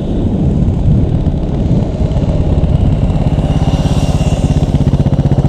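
KTM 690 SMC's single-cylinder engine running on the road. About two seconds in the revs drop and it settles into an even train of separate firing pulses at low revs through the corner.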